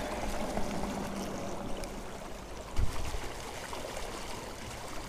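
Small creek running out of a concrete culvert: a steady rush of flowing water, with one low thump a little under three seconds in.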